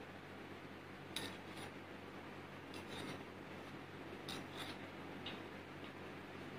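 Steel spoon clinking lightly against a steel bowl while scooping sugar syrup: a few faint clicks, some in pairs, over a low steady hum.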